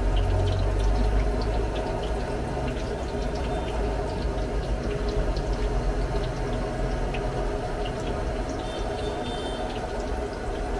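Hot oil in a wok sizzling and crackling steadily as pieces of vegan mock-chicken dough deep-fry, over a low steady hum.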